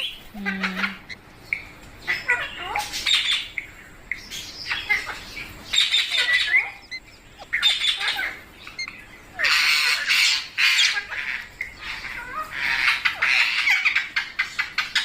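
Pet parrot squawking in about five loud, raspy bursts, with softer chirps and clicks between them.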